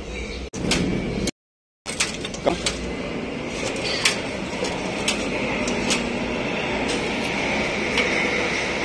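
Several sharp metallic clanks and knocks as a tractor radiator and its frame are handled and fitted, over a steady mechanical hum. The sound cuts out completely for about half a second roughly one and a half seconds in.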